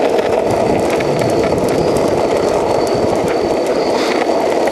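Longboard wheels rolling fast over pavement: a loud, steady rumble with faint scattered clicks.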